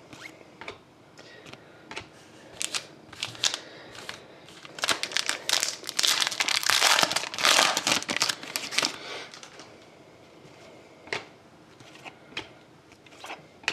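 Foil trading-card pack wrapper crinkling as it is torn open and pulled off the cards, densest in the middle. Before and after, light clicks and slides of the glossy cards being handled.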